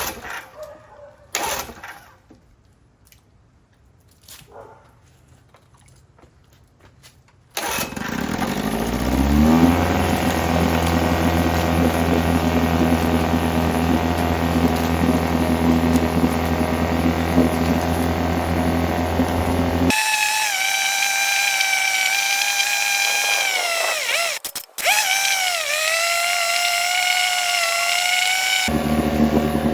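A few light handling clicks, then a 1971 Evinrude 6 hp two-cylinder two-stroke outboard starts about eight seconds in, revs up over a couple of seconds and runs steadily. Later it runs at a higher pitch that wavers and dips, then returns to a lower, steady run near the end.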